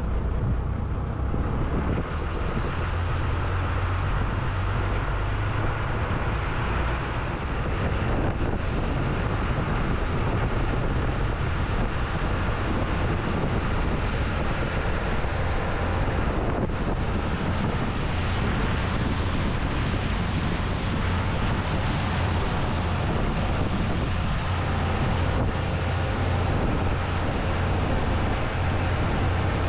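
Boat engine running steadily under way, with wind buffeting the microphone and water rushing past.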